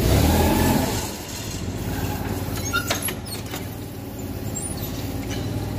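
Forklift engine running at idle, a steady low hum that is louder for about the first second, with a few sharp knocks around the middle.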